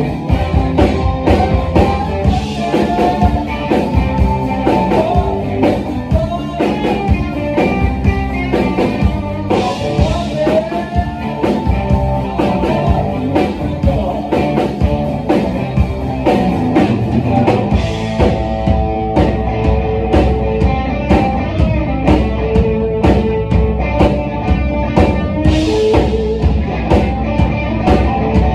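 Live rock band playing: two guitars, bass guitar and a drum kit keeping a steady beat, with bending guitar lines over the top.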